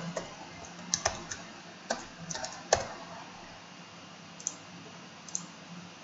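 Computer keyboard keystrokes: a short, irregular run of taps over the first three seconds, then a few fainter clicks.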